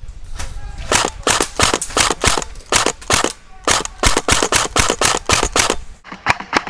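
Airsoft gun firing a rapid string of single shots, about four a second, each a sharp crack.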